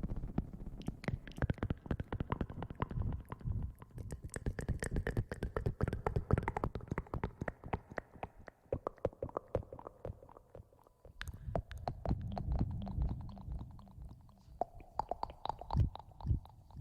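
Close-miked ASMR rustling and crackling: a rapid, dense patter of small clicks. The clicks thin out around the middle, give way to a low muffled rumble for a couple of seconds, then pick up again.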